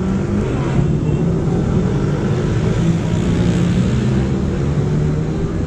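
A motor vehicle engine running nearby, a steady low hum with street noise.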